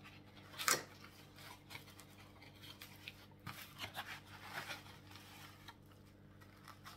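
Scissors cutting open packaging: faint snipping and scratching, with one louder click just under a second in.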